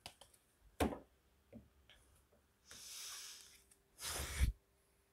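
A deck of tarot cards being handled. A single knock comes about a second in, a soft sliding rustle follows around three seconds in, and a louder, brief rustle comes about four seconds in as the cards are fanned out in the hand.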